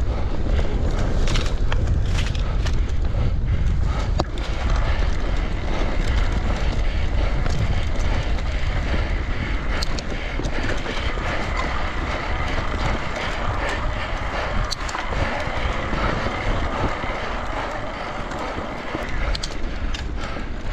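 Riding an electric mountain bike: steady wind rumble on the microphone over the noise of the tyres rolling on a gravel track, with a few sharp clicks and rattles from the bike.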